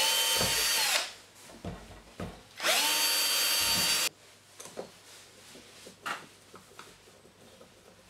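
Power drill boring screw holes into a PVC door for a magnetic door contact: two short runs of about a second and a second and a half, each spinning up to a steady whine and stopping abruptly, followed by a few light handling knocks.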